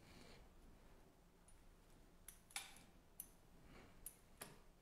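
Faint clicks and light taps of a pastry wheel scoring soft dough strips on a parchment-lined baking tray, a handful of them, mostly in the second half, over quiet room tone.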